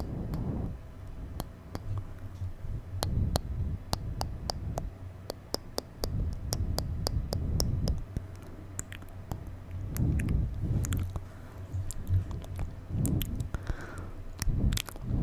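Close-miked ASMR mouth sounds: wet tongue clicks and lip smacks, many in quick runs, with squelchy, moist noises between them.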